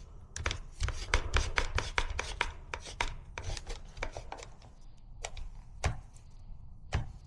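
A clamp being tightened down on a glued part: a quick run of short clicks, a few a second, for the first four seconds or so, then a few scattered clicks.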